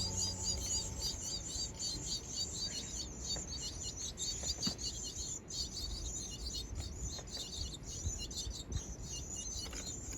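Small songbirds calling: short high chirps repeated about three or four times a second over a continuous high, thin chatter.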